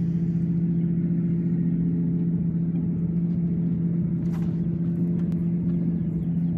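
Electric trolling motor on a bass boat humming steadily at one constant pitch. A brief swish comes about four seconds in.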